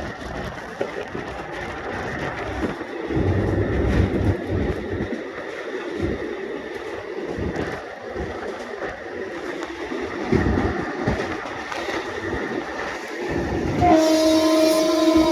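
Indian Railways express train running, a steady rumble with the wheels clattering over the rail joints. Near the end the train's horn starts a long, steady blast.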